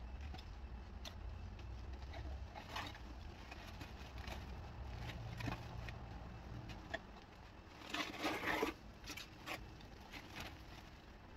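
A black plastic trash bag rustling while pieces of old roofing debris scrape and clatter as they are loaded into it. There are scattered small clicks throughout and a louder burst of crinkling about eight seconds in.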